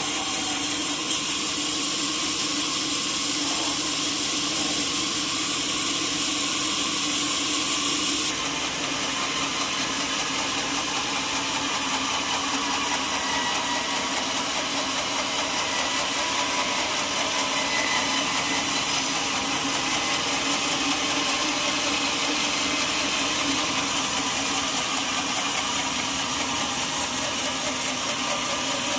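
Sawmill saw running steadily, a continuous machine hum with a sawing hiss; about eight seconds in the sound turns brighter and hissier.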